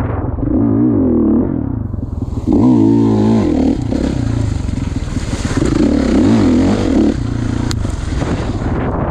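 2016 Kawasaki KX450's four-stroke single-cylinder engine under way on a motocross track, the throttle opened in three revving bursts, the middle one the loudest, with wind rushing in between.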